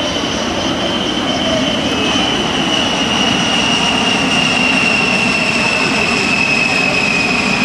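Fairchild Republic A-10 Thunderbolt II's two General Electric TF34 turbofan engines passing overhead: a loud, high whine that slowly falls in pitch over a steady rushing engine noise.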